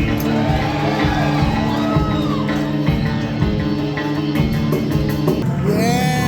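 Live rock band playing: held notes over a low bass, with short gliding tones over them; a sweeping glide comes in near the end.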